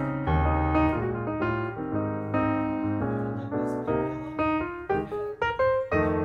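Piano music: a run of struck notes over chords, each note starting sharply and fading.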